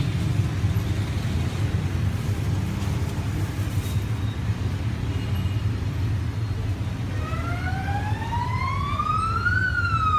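Steady low rumble of street traffic. About seven seconds in, a siren wails upward in pitch and begins to fall again near the end.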